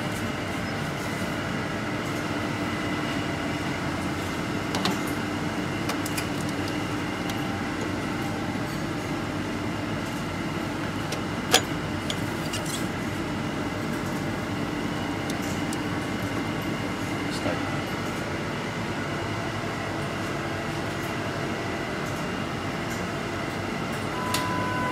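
Steady hum of a clinical laboratory analyzer, with a few light clicks and one sharp click about halfway. An electronic beep sounds near the end.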